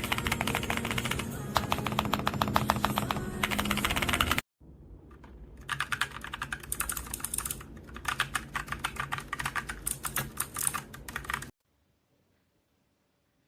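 Mechanical keyboard fitted with Akko switches being typed on fast, a dense run of keystroke clacks. The typing breaks off sharply about four and a half seconds in, starts again at once, and stops about eleven and a half seconds in, after which it is near silent.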